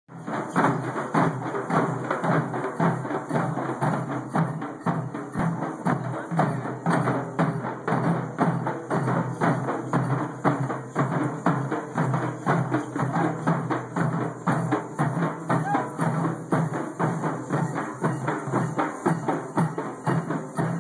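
Oggu dolu, large steel-shelled barrel drums, beaten together by a group of drummers in a steady, driving rhythm of many quick strokes a second.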